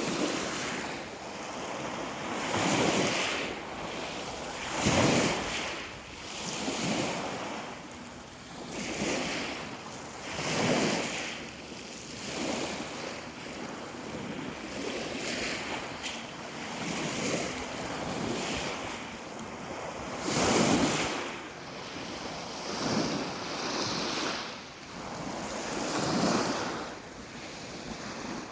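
Sea waves washing in on the shore in a steady series of surges, each swelling and falling away every two seconds or so.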